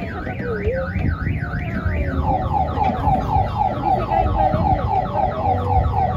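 Electronic siren-style alarm tone, warbling up and down about three times a second. About two seconds in it switches to a faster run of short falling whoops, about five a second.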